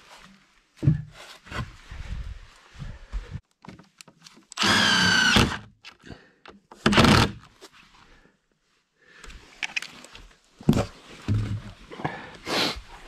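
Cordless impact driver running a screw into a wooden support board, a steady motor whine of about a second, then a second shorter burst. Knocks and thuds from handling the boards and tool come before and after.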